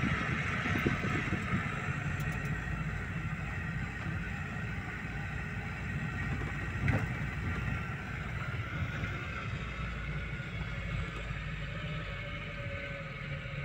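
Car driving along a street, heard from inside the cabin: a steady engine and road rumble, with one short knock about seven seconds in.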